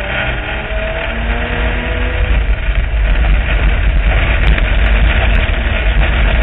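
Street stock speedway car's engine running hard, heard from inside the stripped-out cabin as a heavy low rumble mixed with road and dirt noise. It eases slightly near the start and builds again from about two and a half seconds in as the car powers through the turn.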